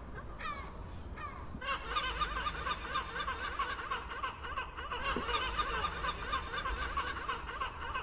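Gulls calling: a few single falling calls at first, then, from about two seconds in, many gulls calling at once in a dense, continuous clamour.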